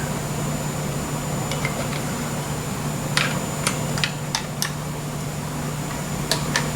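Steady low hum of a fan-like machine, with a handful of light, sharp clicks or taps from about halfway through and two more near the end.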